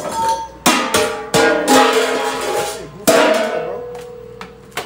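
Stainless steel food pans thrown onto a tiled floor: several metallic crashes, each ringing on and dying away, the last one a little after three seconds in ringing longest.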